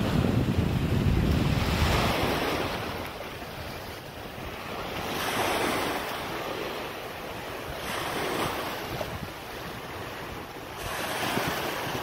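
Small sea waves washing in over rocks and sand, each wash swelling and fading about every three seconds. Wind rumbles on the microphone, heaviest in the first two seconds.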